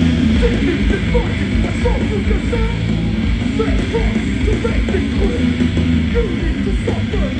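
Hardcore band playing live and loud: heavy distorted guitars and bass over a dense, driving drum beat.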